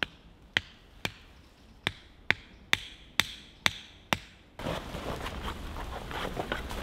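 A guy-line tent peg being hammered into the ground: about nine sharp strikes, roughly two a second, that stop about four and a half seconds in. Then rustling and shuffling as the canvas tent is handled.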